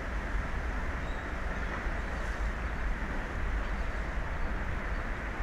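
Steady low rumble with an even hiss and no distinct events, the sound of an unattended outdoor microphone.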